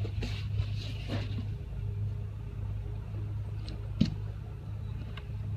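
Cardboard shipping box scraping and rustling against a rolled heavy PVC inflatable boat as it is pulled off, over a steady low mechanical hum. A single sharp knock comes about four seconds in.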